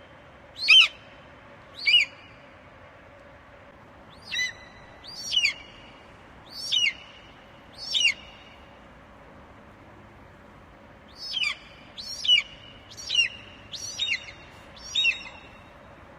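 Eagle calling: a series of short, high, piercing cries, each sliding sharply downward in pitch. They come in three loose runs of two, four and five or six cries, with pauses of about two seconds between the runs.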